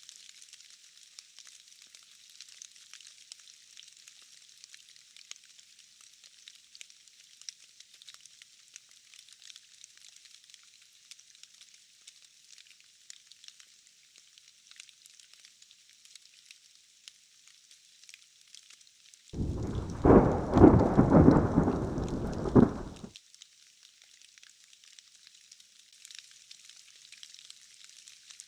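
Steady hiss of falling rain, with one loud clap of thunder about two-thirds of the way through that rumbles for about four seconds and then cuts off suddenly.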